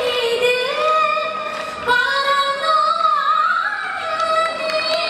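A woman singing solo into a microphone, holding long notes with sliding, ornamented turns.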